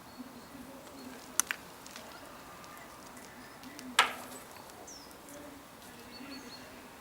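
Outdoor yard ambience with faint bird chirps. A few sharp clicks or knocks stand out: a quick pair about a second and a half in, and a louder single one about four seconds in.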